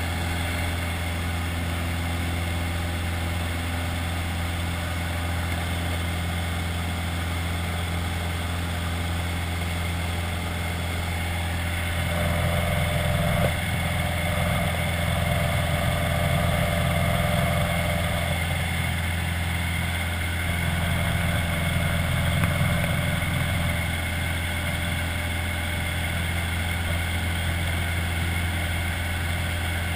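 Single-engine light aircraft's engine and propeller running steadily in flight, heard from inside the cockpit. It swells louder for a stretch near the middle, then settles back to an even level.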